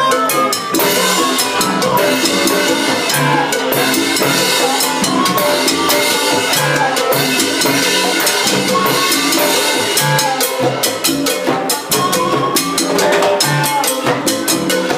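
Live Latin band playing a medley, with a drum kit and percussion keeping a steady beat under held notes from the other instruments.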